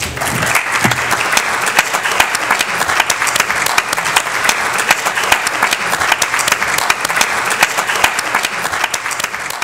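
Audience applauding, a dense even patter of many hands clapping that eases off slightly near the end.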